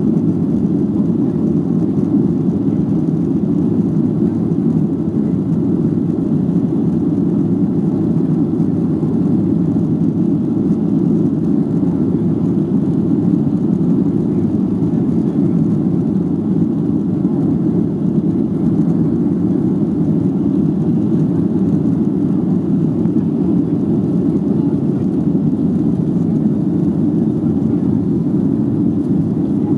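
Cabin noise of a Boeing 737-800 on its takeoff roll: the CFM56-7B turbofan engines running at takeoff thrust, a steady, loud, deep noise.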